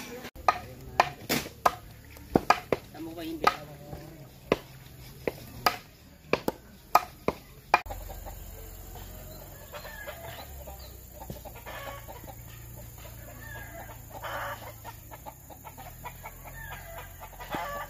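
About a dozen sharp, irregular knocks over the first eight seconds, then a quieter stretch with a chicken clucking now and then.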